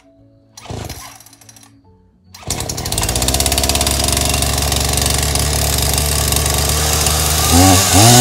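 Two-stroke Husqvarna chainsaw being pull-started: one short pull on the starter cord about a second in, then the engine catches on the next pull about two and a half seconds in and runs steadily. Near the end it revs up briefly.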